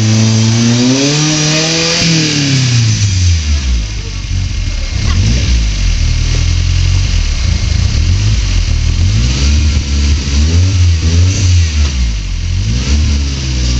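Rock crawler buggy's engine revving in repeated bursts under load as it climbs a boulder ledge, its pitch climbing and falling with each blip of the throttle.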